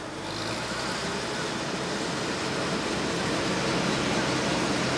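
Diesel engine of an International pulling tractor idling at the end of its pull, a steady low tone under a rushing hiss.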